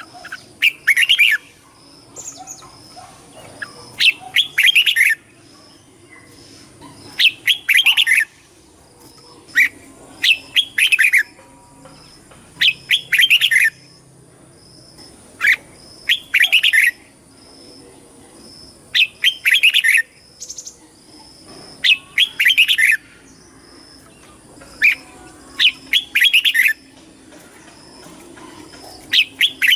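Red-whiskered bulbul song: short, loud, warbling phrases, about one every three seconds.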